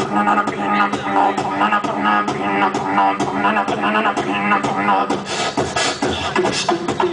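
Beatboxing through a handheld microphone and PA: a quick, continuous run of mouth-made clicks and drum-like hits over a steady low hummed tone.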